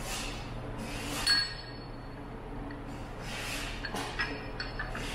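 Steel gears and rings of a truck power divider clinking as they are handled and fitted together on the floor, with one sharper metallic clink that rings on briefly about a second in and a few lighter clicks near the end.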